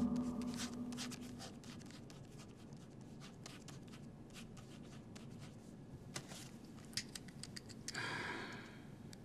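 A low held tone fades out over the first second or so. Then a quiet room with scattered faint clicks and taps, and a short rustle about eight seconds in.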